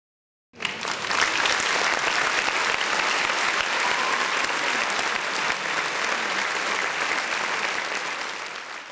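Crowd applause, many hands clapping, starting abruptly about half a second in and fading away near the end.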